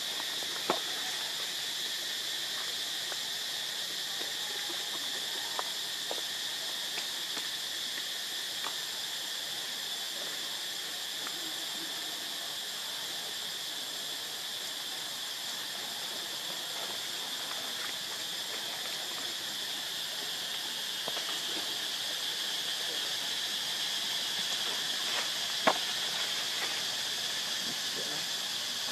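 Steady, high-pitched drone of a forest insect chorus, with a couple of sharp clicks, one about a second in and a louder one near the end.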